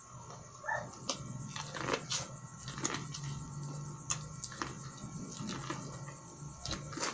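Close-up biting and chewing of boiled sweet corn off the cob, with irregular crisp clicks of kernels being bitten, while a dog makes noise in the background.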